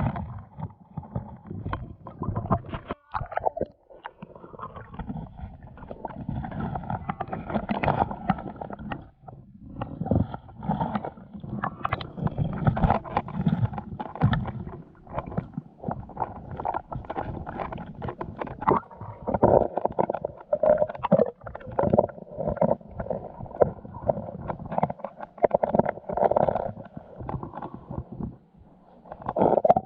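Water gurgling and sloshing in uneven, irregular surges, with many short knocks and pulses throughout.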